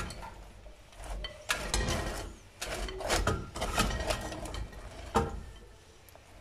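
Metal spoon stirring crisp broken thenkuzhal pieces coated in jaggery syrup in a glass bowl. Crunchy scraping and clinking comes in spells, with a sharp knock about five seconds in.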